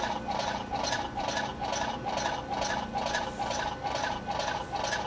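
Homemade bandsaw mill running slowly, its motor set to 4.5 hertz, with the tensioned blade travelling around the spoked wheels and a steady repeating beat about four times a second. The blade is tracking steadily and not moving on the wheel.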